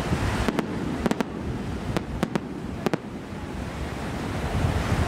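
Fireworks display: about nine sharp shell bursts in the first three seconds, several in quick pairs, over a steady low rumble.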